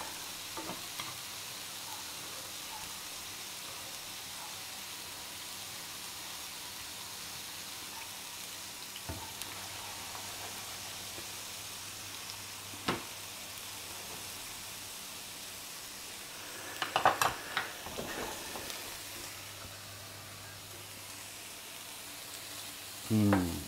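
Potato slices frying in oil in one pan, and diced bacon with onions in another, making a steady sizzle. A few sharp clicks and knocks come from the utensils against the pans, with a short cluster of them about two-thirds of the way through.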